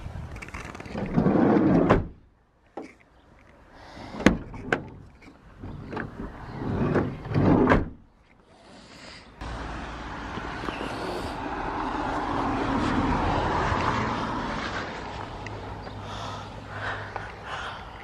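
Rustling and knocks of someone moving about inside a car, with sharp clicks like a car door latch about four seconds in. About nine seconds in, a steady outdoor noise comes in, swells and then fades.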